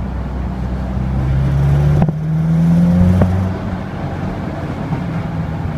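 Subaru Impreza WRX STI (GDB-F) turbocharged flat-four pulling under acceleration, its note climbing for a couple of seconds and then easing off, with two short sharp knocks along the way. In this rev range it makes a 'karakara' rattle, which the dealer traced to the heat shield on the turbine support pipe.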